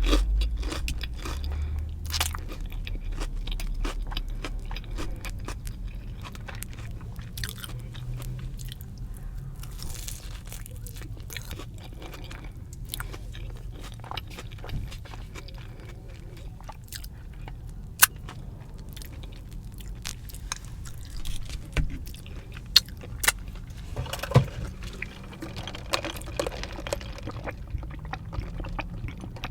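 Close-miked crunching and chewing of a fried Korean cheese dog, with a dense run of crackles and a few louder sharp clicks in the second half.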